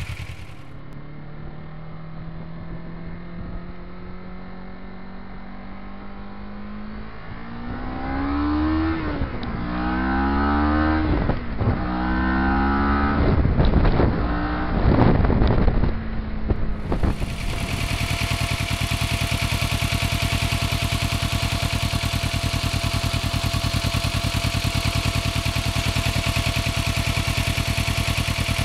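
Kawasaki Ninja motorcycle engine under way, its note rising slowly at first, then climbing and dropping several times as the bike speeds up and slows. From a little past halfway it settles into a steady, even note like idling.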